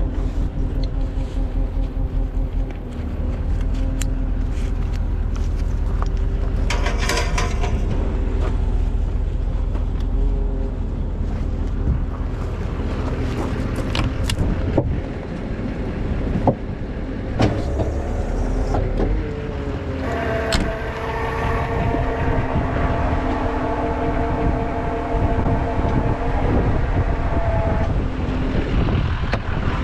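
Duramax diesel tow truck engine idling with a steady low rumble, with scattered metallic clanks and knocks as wheel dollies and gear are handled. A steady pitched hum joins about twenty seconds in and fades near the end.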